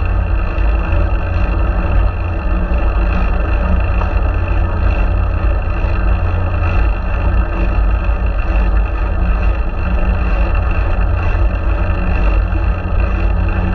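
Steady wind and road rumble on the microphone of a GoPro Hero4 riding on a moving fixed-gear bicycle, heaviest in the low end, with a faint regular tick about once a second.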